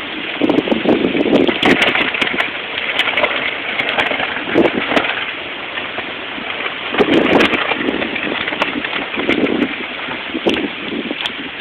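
Hurricane wind and rain: a steady hiss of rain, with irregular gusts buffeting the phone's microphone and scattered sharp ticks.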